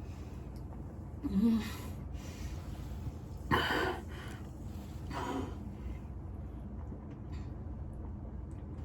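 A person makes three short breathy vocal sounds: a brief gasp with a rising pitch about a second in, a louder one about three and a half seconds in, and a fainter one a couple of seconds later. A steady low hum lies underneath.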